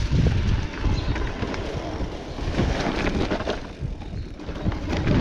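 Electric mountain bike ridden along a dirt trail: wind buffeting the camera microphone, tyres rolling over the ground, and the bike rattling and clattering over bumps, briefly quieter about four seconds in.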